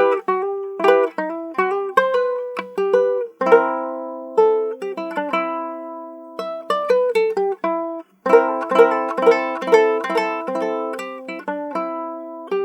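Handmade tres hondureño played as a sound test: quick plucked notes and strummed chords that ring on, with a brief break about eight seconds in and a last chord left to fade.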